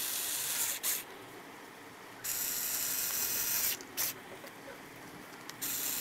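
Black+Decker cordless drill-driver whirring in three short runs, driving screws into a small speaker's plastic back cover; the middle run lasts about a second and a half, with short clicks between runs.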